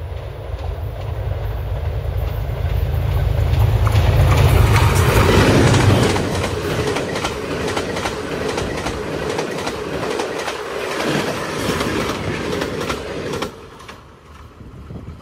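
GEU-20 diesel-electric locomotive of an express passenger train approaching and passing close, with a deep engine rumble that peaks about five seconds in. The coaches then rush past with a rapid clickety-clack of wheels over rail joints, which cuts off sharply near the end as the last coach goes by.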